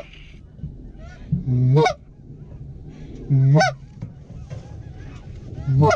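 Goose honking: three loud, sharply rising honks about two seconds apart, over fainter calling from a large flock of cackling and lesser Canada geese circling overhead.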